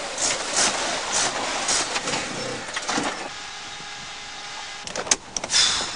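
Small car's engine running and faltering as it runs out of petrol. A few sharp clicks come about five seconds in, followed by a short burst of noise.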